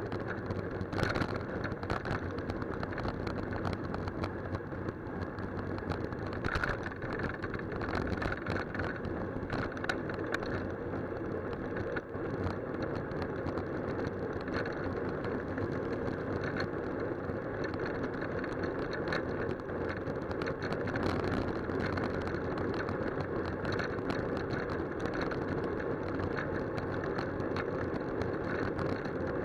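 Bicycle riding on a wet tarmac road, heard through a handlebar-mounted camera: steady tyre and road noise with frequent small rattles and knocks from the bike and mount, and car traffic close alongside.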